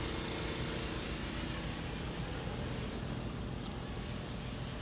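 Steady low rumble of a vehicle running, with outdoor background noise.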